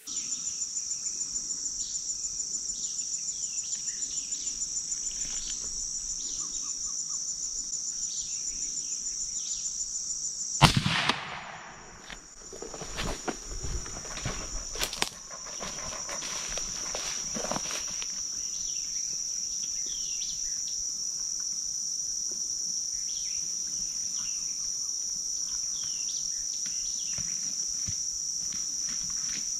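Steady, high-pitched chorus of crickets or other insects, broken about ten seconds in by a single sharp rifle shot at a feeding hog. The shot is followed by several seconds of irregular cracks and thumps before the insect chorus runs on alone.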